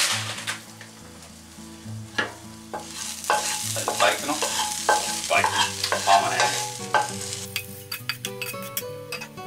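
Hot, crispy Parma ham sizzling as it is scraped out of a frying pan into a ceramic bowl with a spatula, with scrapes and then a run of sharp clicks of the spatula against pan and bowl near the end. Soft background music runs underneath.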